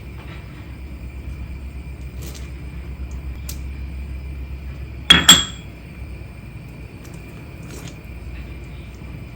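A steady low hum, then one loud metallic clink of kitchenware about five seconds in, ringing briefly; the hum stops right after it.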